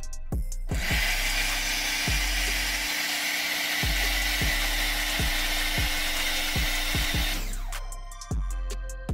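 CAT electric pressure washer running and spraying through a 1.25 nozzle at about 1150 PSI on the gauge: a loud, even hiss of water with a steady motor hum underneath. It starts about a second in and dies away near the end, over background music with a steady beat.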